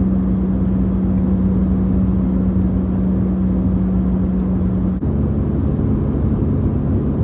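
Car cabin noise while driving: a steady engine drone over low road rumble. About five seconds in there is an abrupt cut, and the drone comes back slightly higher in pitch.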